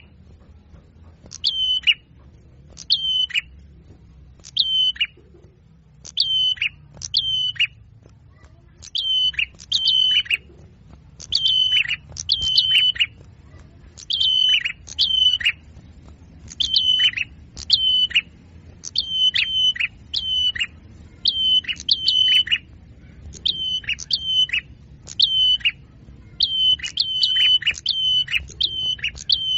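A small songbird calling over and over: sharp, high chirps that drop steeply in pitch, given singly or in quick pairs and threes every second or two.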